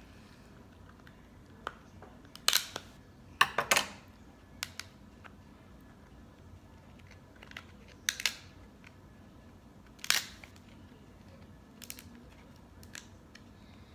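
Alaskan king crab leg shell being snipped with kitchen scissors and cracked apart by hand: a series of sharp crunching snaps, irregularly spaced, loudest a few seconds in.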